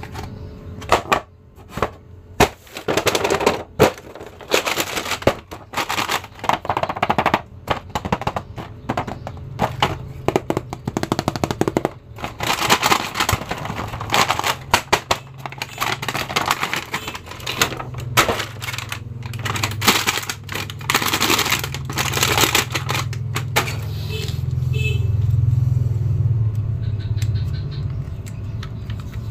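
Plastic blister packaging and a cardboard toy box crackling and clicking as they are handled and opened, many quick sharp crackles in irregular clusters. Near the end the crackling gives way to a low hum.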